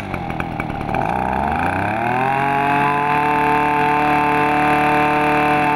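Mitsubishi T170 brush cutter's 33cc two-stroke engine, running at low revs and then throttled up over about a second and a half, holding steady at high revs.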